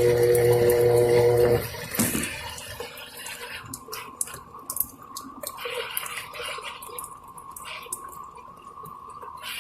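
Electrolux Turbo washing machine running with a steady electric hum and water flowing, which stops about one and a half seconds in, followed by a click; after that, water trickles and drips.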